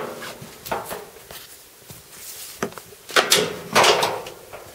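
Short knocks, scrapes and rubs of dryer parts being handled while a new drive belt is fitted around the drum, about half a dozen in all, the loudest a little after three seconds in and again near four seconds.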